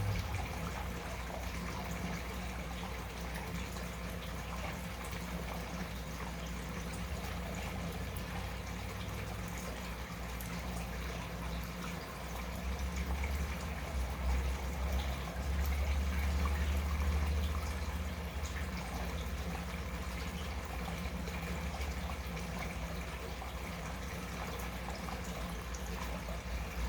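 Aquarium water making an odd bubbling and trickling sound, over a steady low hum. About halfway through, a louder low rumble swells for a few seconds, then settles back. What causes the bubbling is unknown.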